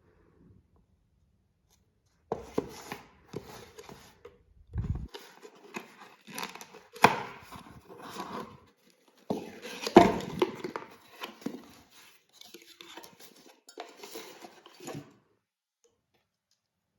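Household objects being handled close up: irregular taps, clinks and rustles, with a couple of sharper knocks about seven and ten seconds in.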